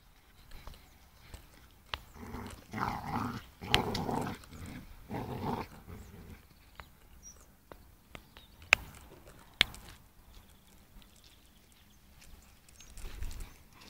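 Two pit bull terriers play-growling in three short rough bouts, between about two and six seconds in, as they tug at a cloth toy. A few sharp clicks are heard around them.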